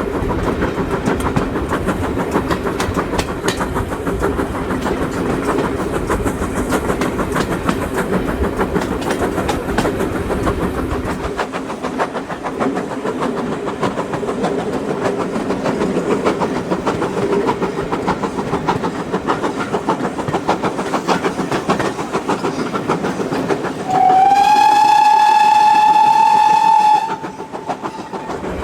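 Steam train under way behind GWR-style 2-6-0 locomotive No. 9351: steady running noise with a fast clatter of wheels on rail, the low rumble falling away about a third of the way through. Near the end the locomotive's steam whistle gives one long blast of about three seconds, sliding up slightly at the start and then holding.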